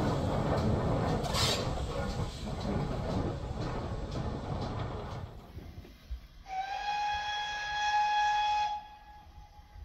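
A steam-hauled train running, a steady rumbling noise that dies away about five seconds in. Then a steam locomotive's whistle gives one steady blast of about two seconds.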